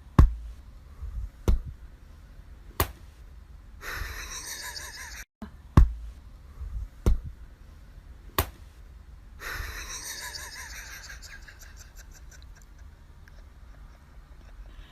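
Six sharp knocks in two sets of three, about a second and a quarter apart, with a soft breathy sound between them.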